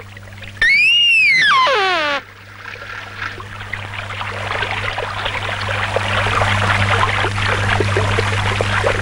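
A loud whistle about a second in that rises briefly and then slides far down in pitch. After it comes the steady rush of water running from a channel at a stone bathing step, growing gradually louder.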